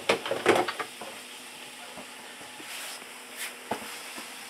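Water boiling and sizzling on a hot electric griddle at about 146 °C, well above water's boiling point. A burst of loud crackles and spits comes in the first second, then a steady faint hiss with a few pops later on.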